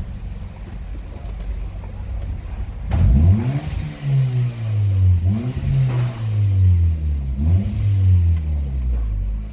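Hyundai Tucson 2.0 engine heard through an exhaust with the rear muffler removed: idling with a low drone, then revved up three times, each rev rising quickly and falling back.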